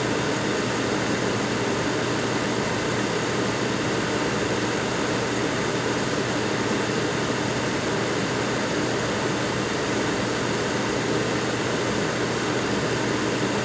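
Steady rushing air noise of a fan or blower running on the workbench, with a faint low hum.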